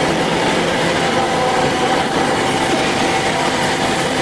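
Band saw running steadily through a cut with water coolant on, a continuous machine noise with a faint steady whine in it.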